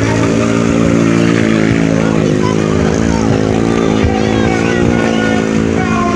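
Automatic scooter engine running steadily under throttle as the scooter spins circles on asphalt.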